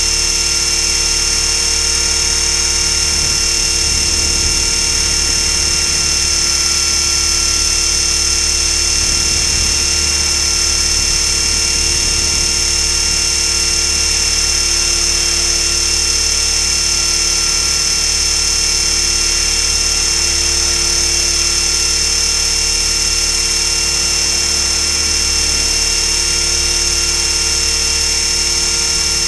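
Align T-Rex 500 electric RC helicopter running at a steady head speed: a high-pitched whine from the brushless motor and gears, with rotor noise, recorded from a camera strapped to the frame. The pitch holds level throughout.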